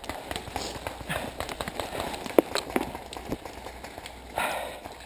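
A string of irregular sharp knocks and pops, the loudest a little over two seconds in, with a short burst of rustling near the end.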